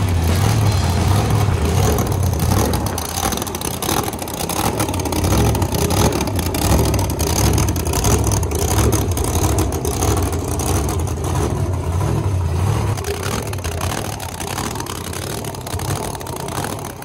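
An engine running and revving, loudest in the first half and easing off slightly toward the end.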